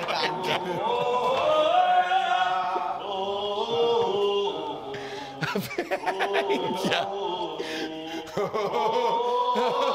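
Voices singing a tune together, with long held notes and gliding pitch; a few short sharp noises break in between about five and a half and seven seconds in.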